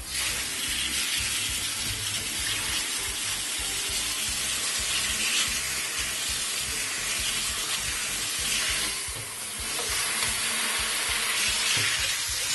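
Water from a bath shower head spraying onto an air conditioning filter's mesh as it is hosed clean, a steady hiss that starts suddenly and dips briefly about nine seconds in.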